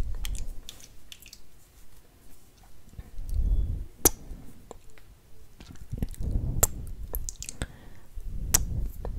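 Close-miked ASMR mouth sounds: wet lip smacks and mouth clicks, scattered sharp clicks with the loudest about four seconds in, and soft low swells between them.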